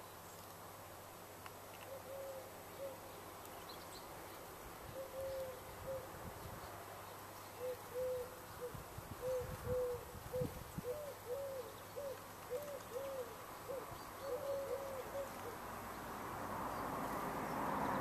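A pigeon cooing: a series of low, soft coo notes in short phrases that come quicker and more evenly through the middle. A rush of background noise swells near the end.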